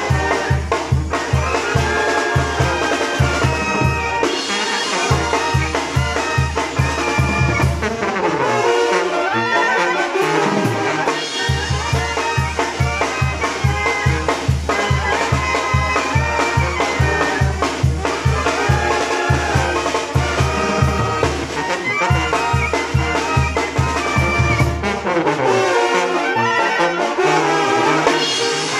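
Live Mexican banda brass band playing: clarinets, trumpets and trombones carry the melody over a sousaphone's steady pulsing bass and drums. The bass beat drops out twice, for a few seconds each time, while the horns play on.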